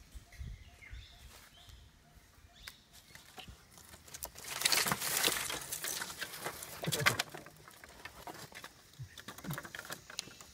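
Dry sticks and kindling being snapped and handled, a dense run of crackling snaps in the middle, with faint bird calls and a few scattered clicks around it.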